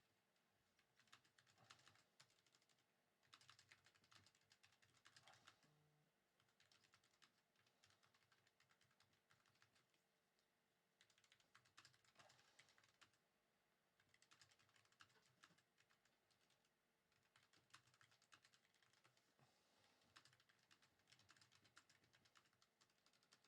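Faint computer keyboard typing: bursts of quick keystrokes separated by short pauses.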